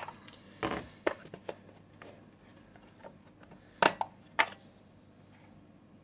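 Handling noise from a plastic wireless door chime unit: a few sharp clicks and knocks in the first second and a half, then two louder clicks about four seconds in.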